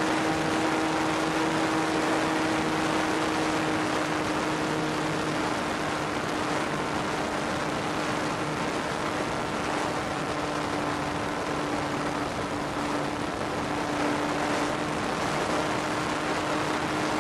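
Radio-controlled model Ju-87B's motor and propeller running at full throttle, heard from on board as a steady drone whose pitch sags slightly partway through, over heavy wind rush on the microphone.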